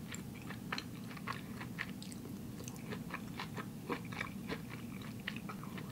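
Close-miked chewing of a mouthful of soft sushi roll topped with tomato 'tuna': small, irregular wet mouth clicks and smacks over a low steady hum.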